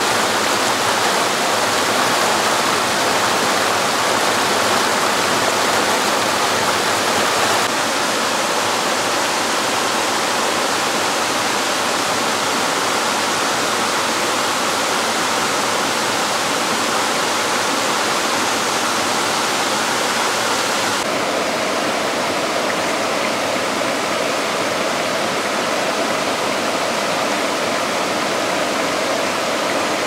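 Waterfall rushing steadily, an even wash of water noise with no other sound over it; its tone shifts abruptly twice, about 8 and 21 seconds in.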